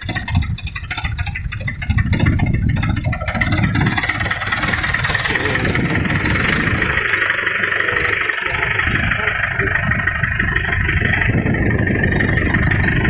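Mahindra 575 DI tractor's diesel engine running, unsteady for the first couple of seconds and then running steadily and loudly with a deep rumble.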